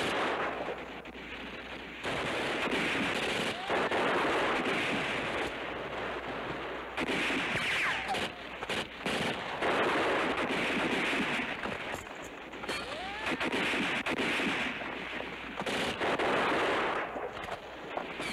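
Film battle soundtrack: sustained machine-gun and rifle fire, swelling in repeated bursts every couple of seconds.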